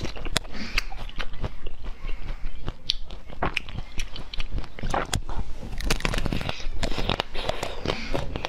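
Close-up biting and chewing of hard, crunchy frozen treats, with many irregular sharp cracks as the coating breaks between mouth noises.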